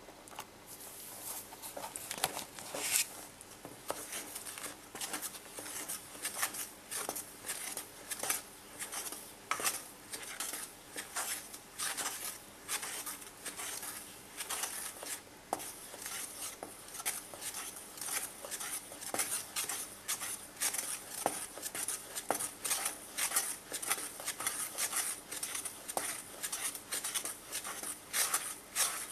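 A wooden stick scraping and knocking against the side of a metal bowl as soap batter of melted fat and lye is stirred. It makes rhythmic clicks and scrapes, a little under two a second.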